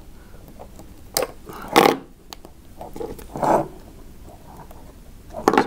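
Small wire cutters snipping and crunching through the end of a thick coaxial cable, struggling with a cable too thick for them: a few separate sharp snips and scrapes, the loudest about two seconds in.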